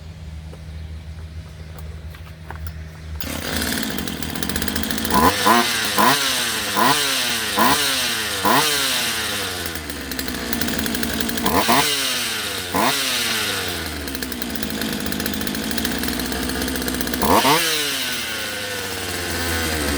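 Craftsman two-stroke chainsaw engine catching a few seconds in and running, with the throttle blipped repeatedly: each rev rises sharply in pitch and falls back to idle, about eight times in all.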